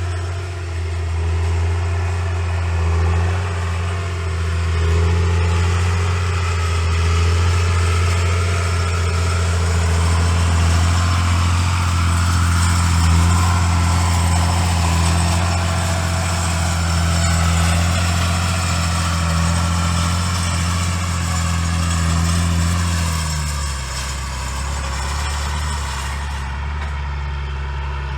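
Tractor engine running steadily with a deep, even hum; about 23 seconds in it settles slightly lower and quieter.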